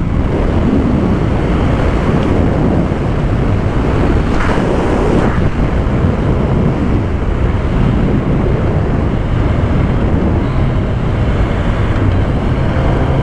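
Wind rushing over the microphone of a camera mounted on a sport motorcycle riding at around 100 km/h. The bike's engine runs underneath the wind, which covers it.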